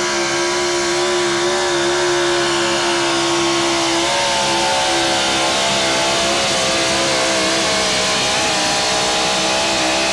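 Super stock 4x4 pull truck's engine running hard at steady high revs while it drags the weight-transfer sled. The pitch holds nearly level, shifting slightly about four seconds in.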